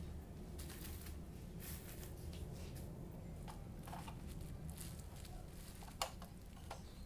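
Faint rustling and crinkling of bubble wrap and cables being handled, then a sharp click about six seconds in as a power plug is pushed into a socket strip. A steady low hum runs underneath.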